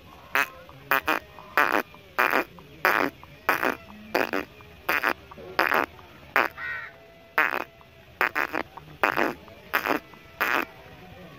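A bird calling over and over: about a dozen and a half short, loud calls, some in quick pairs, coming every half second or so.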